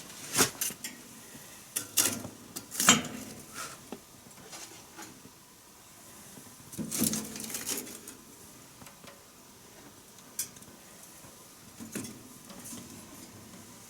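Wood fire crackling in a wood-burning stove: irregular sharp pops and snaps, a cluster in the first few seconds and another about seven seconds in, over a faint steady hiss.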